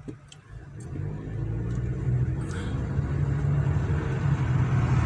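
Car engine and road rumble heard from inside the cabin as the car pulls away from a standstill, building over the first two seconds and then running steadily.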